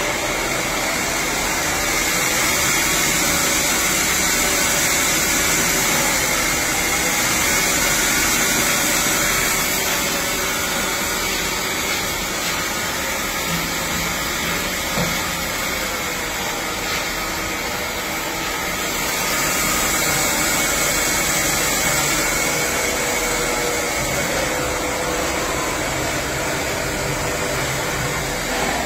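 CNC lathe running, its spindle turning the chucked workpiece with a steady whir and a high whine.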